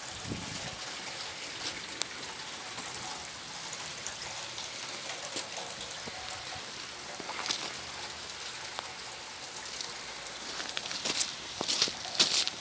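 Steady rain hissing and pattering on puddles and a flooded, muddy lane, with a few louder short sharp noises near the end.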